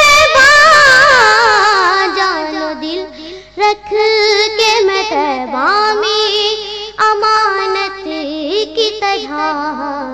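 A boy singing a naat solo, drawing out a long wordless melisma: a high held note with wide vibrato slides down over the first couple of seconds, followed by winding ornamented phrases.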